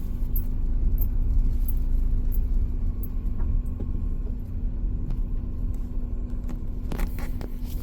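Car idling: a steady low rumble with a constant hum, light ticks throughout, and a couple of sharper knocks near the end.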